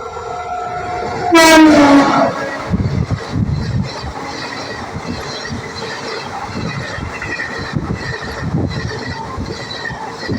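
A train passing with its horn sounding: the horn comes in loudly about a second and a half in and drops in pitch over about a second. It is followed by a steady rumble and a regular clickety-clack of wheels over the rail joints.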